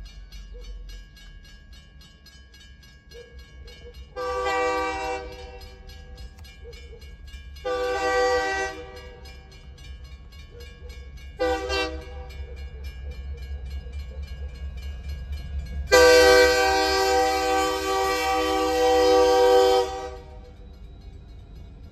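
Locomotive air horn sounding the grade-crossing signal: two long blasts, a short one, then a long one of about four seconds, each a chord of several tones. Beneath it runs the steady low rumble of the train.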